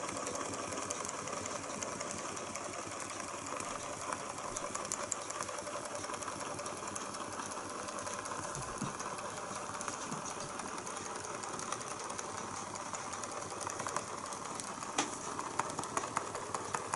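Small hot-air Stirling engine with a vertical crankshaft and horizontal flywheel running at speed, a steady rapid mechanical clatter from its crank and linkages. A few sharper clicks come near the end.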